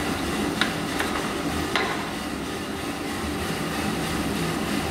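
Small electric drum coffee roaster running mid-roast, its motor humming steadily as the drum turns the beans. Three sharp clicks come within the first two seconds.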